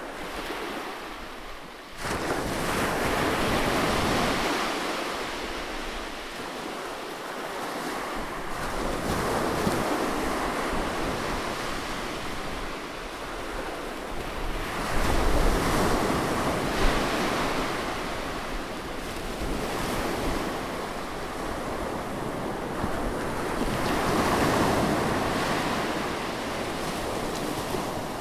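Sea waves breaking close by and washing up the shore, rising and falling in about four slow swells, with a sudden jump in loudness about two seconds in.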